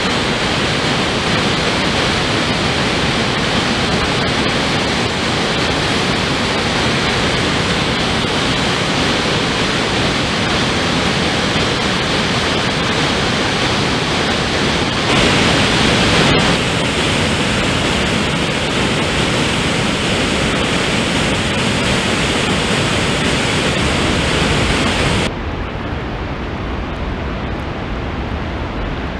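Floodwater pouring down a dam's open concrete spillway: a loud, steady rushing of water. About 25 seconds in it drops suddenly to a quieter, duller noise.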